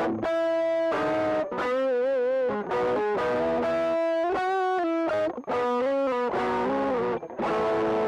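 Telecaster-style electric guitar played through a pedalboard of effects: a slow lead line of single sustained notes with short breaks between them, several notes wavering in pitch, with a slightly driven tone.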